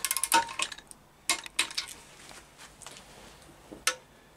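Socket wrench working the steel bolts of an engine's front gear cover. A quick run of metallic clicks comes first, then a few separate clinks, the last one near the end with a short ring.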